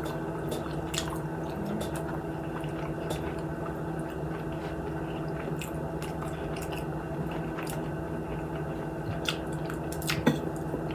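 Close-up wet chewing and lip-smacking of someone eating fried chicken wings, with scattered short clicks over a steady low hum.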